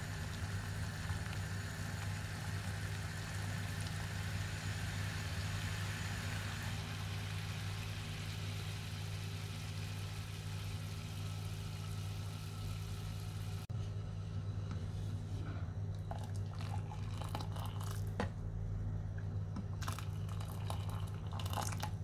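Kitchen batter-preparation sounds over a steady low hum: a continuous hiss for the first half, then, after a sudden change about fourteen seconds in, scattered clicks and wet squishing sounds.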